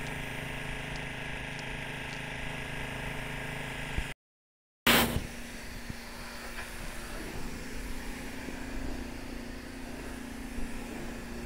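Pressure washer running steadily, its motor humming under a faint hiss of spray. The sound cuts out for about half a second just after four seconds in and comes back with a short loud burst.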